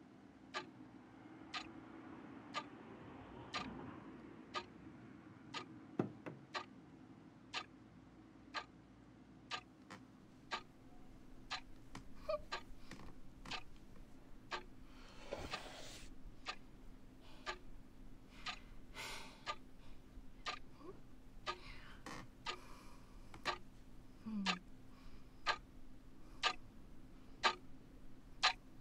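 Pendulum clock ticking steadily, roughly once a second, over a faint low steady drone.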